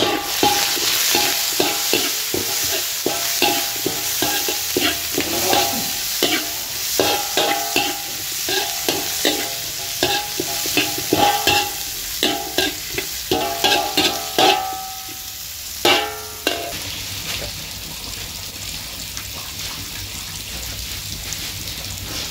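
Metal spatula scraping and knocking against a hot wok as it stir-fries lemongrass, galangal, shallots and dried chillies, quick ringing strokes over a sizzle. The strokes stop about three-quarters of the way through, leaving a fainter steady hiss.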